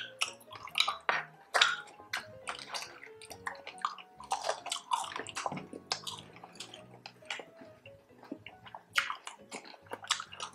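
Close-up crunching and wet chewing of crispy pork belly with its crackling skin, in many sharp, irregular crunches with smacking mouth sounds between. Light background music with steady notes runs underneath.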